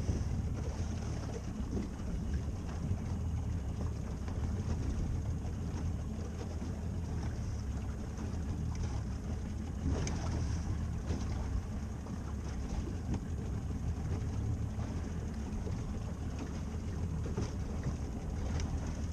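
Small boat's outboard motor running steadily under way, with water and wind noise.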